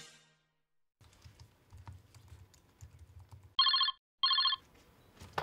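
Corded desk telephone's electronic ringer sounding two short trills, about half a second apart, roughly three and a half seconds in.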